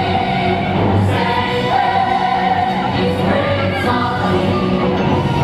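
Theatre chorus singing long held notes over orchestral accompaniment, a musical-theatre production number.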